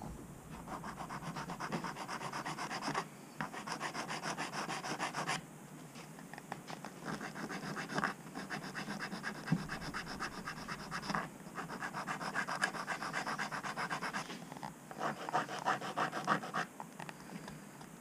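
Small abrasive sanding stick rubbed quickly back and forth over a small plastic model part, smoothing off the sprue marks. The fast rasping strokes come in several runs of a few seconds each, with short pauses between them.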